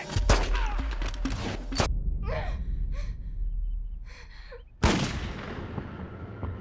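Trailer sound design: a sudden heavy hit just after the start, then several sharp gasping breaths, then another sudden heavy hit about five seconds in that dies away slowly.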